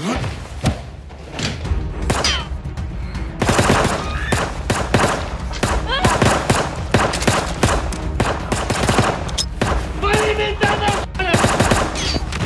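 Pistol gunfire: a rapid run of shots, several a second, starting about three seconds in, with voices mixed in.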